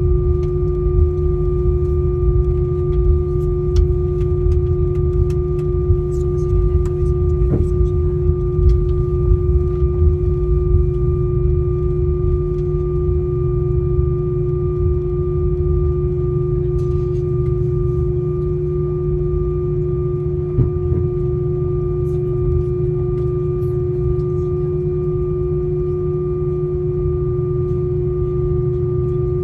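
Cabin noise inside an Airbus A319-131 on the ground after landing: a steady whine over a low rumble, with a couple of faint clicks.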